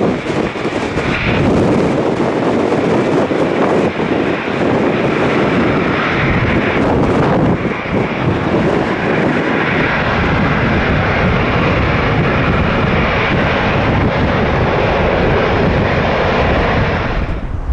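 Departing Airbus A330-300's twin jet engines at takeoff thrust: a loud, steady jet roar that cuts off suddenly near the end.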